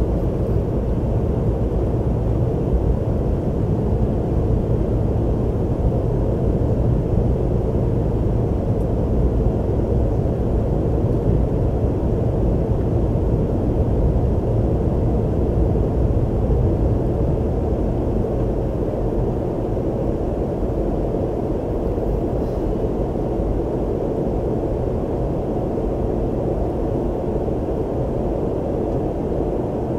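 Steady engine and airflow noise of an airliner in flight, heard inside the cabin: a dull, even noise weighted low, easing slightly about halfway through.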